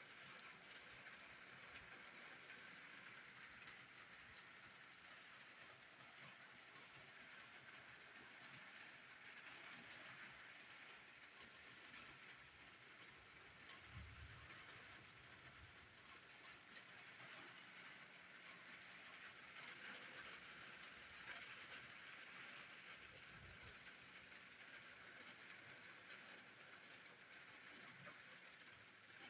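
Faint, steady rain falling, an even hiss, with a brief low rumble about halfway through and another about two-thirds through.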